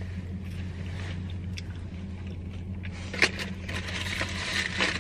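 Paper fast-food sandwich wrapper crinkling as it is handled and opened, starting with a sharp click about three seconds in, over a low steady hum.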